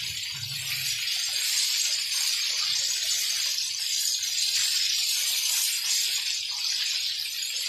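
Breaded chicken pieces deep-frying in hot oil in a pan: a steady crackling sizzle.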